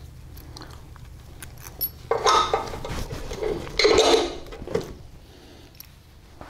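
Metal suspension parts and hardware clinking and scraping as they are handled, with two louder stretches of scraping about two and four seconds in and small clicks in between.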